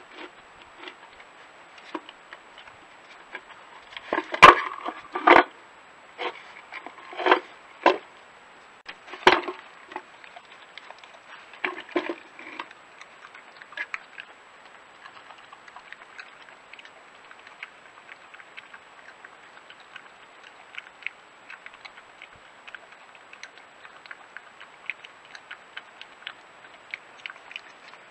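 A badger knocking and shoving a small wooden feeder box about on paving slabs: a run of loud wooden knocks and clatters between about four and ten seconds in, with a few more soon after. Then come faint scattered ticks.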